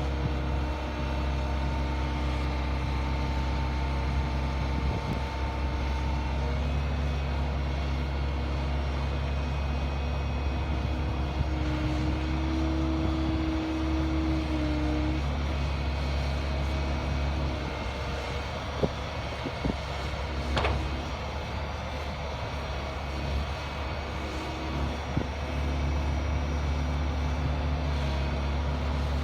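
Excavator diesel engine running steadily. A higher tone joins for a few seconds partway through, and a few sharp knocks come about two-thirds of the way in.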